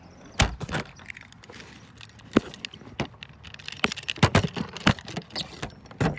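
A key ring jangling in irregular sharp clinks, the loudest about half a second in, around two and a half seconds in, twice between four and five seconds in, and again near the end.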